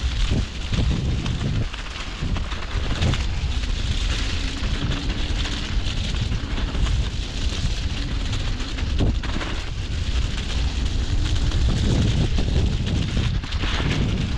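Mountain bike descending a muddy, slushy trail: wind rushing over the microphone with a steady low rumble, the tyres hissing over mud, grass and wet snow, and short knocks as the bike goes over bumps.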